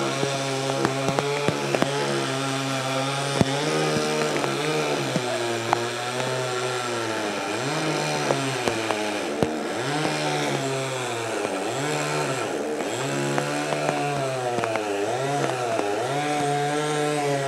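Two-stroke chainsaw running while cutting through the trunk of a large fallen tree. The engine runs steadily at first, then from about six seconds in its pitch repeatedly drops and recovers, roughly every second and a half, as the chain bogs down in the wood and frees again.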